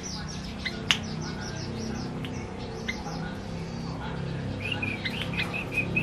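Male yellow-vented bulbul (trucukan) singing in quick runs of short chirping notes: a rapid string of high down-slurred notes at the start, scattered chirps, then a run of repeated notes near the end. There is one sharp click about a second in.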